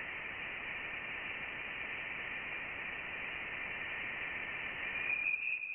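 Voyager 1 plasma wave data played as sound: a steady hiss with a thin whistling tone around 2 kHz. About five seconds in, the tone steps a little higher and louder. These are electron plasma oscillations picked up as the spacecraft left the solar system; the higher tone is the sign of the denser plasma of interstellar space.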